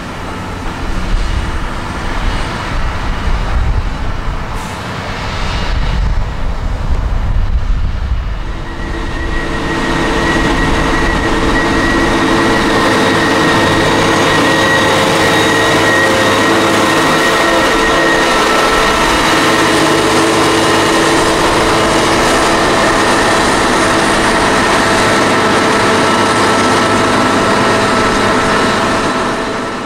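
Heavy farm machinery running during maize chopping: an uneven low rumble at first, then from about nine seconds in a steady, louder engine drone with a constant whine.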